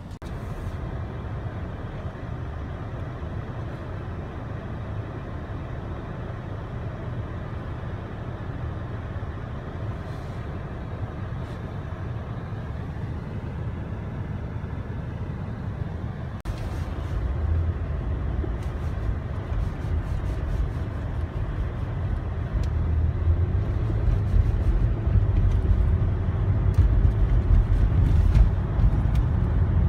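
Car road noise heard from inside the cabin while driving: a steady low rumble of engine and tyres that grows louder in the second half.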